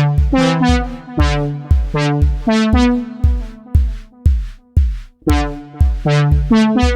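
Electronic beat made on a drum machine and synthesizer: a kick drum about twice a second under repeating synth chords. About four seconds in, the beat thins out and fades for about a second, then comes back in full.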